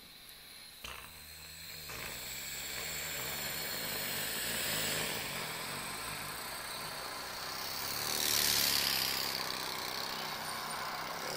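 A man imitating road traffic with his voice: vehicles sped past on a busy road, with a steady engine hum that builds up and one louder vehicle going by near the end.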